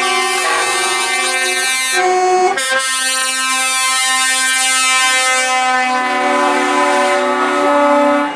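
Truck air horns blowing long, loud chords of several notes at once, the notes shifting a few times, with a short break about two and a half seconds in.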